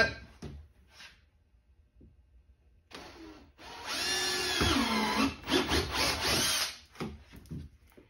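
Cordless drill with a half-inch bit boring through the plastic lid of a wheeled trash cart: a short spin about three seconds in, then about three seconds of motor whine whose pitch sags once midway.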